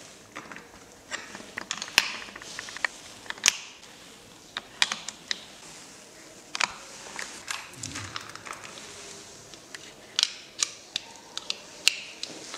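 Metal type sorts clicking as they are picked from a wooden type case and set one by one into a steel composing stick during hand typesetting. The clicks come irregularly, a dozen or more sharp taps with short gaps between them.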